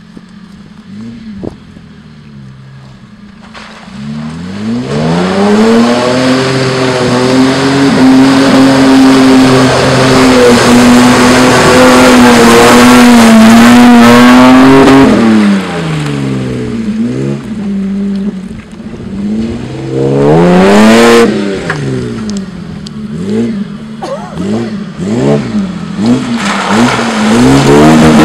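Toyota Land Cruiser VX 80's engine, fitted with new exhaust headers, revving up about four seconds in and held at high revs for about ten seconds as the wheels spin in mud. The revs then drop and come back in a series of short rises and falls.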